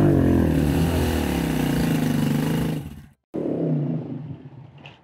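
Hero Honda CD Deluxe single-cylinder motorcycle engine running, its pitch rising and falling as the rider revs it. The sound breaks off abruptly just after three seconds in, then the engine is heard again, fainter.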